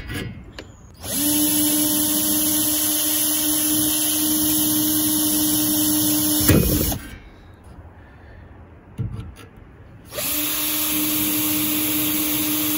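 Hitachi cordless drill boring holes in a solar panel's aluminium frame. It runs at a steady pitch for about five seconds and ends in a brief loud clatter. It stops, there is a knock, and it starts drilling again near the end.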